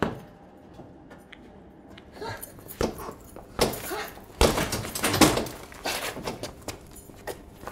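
Fists hitting the hanging leather ball of a fairground boxing machine: one sharp smack at the start, then a run of heavy thuds from about three seconds in.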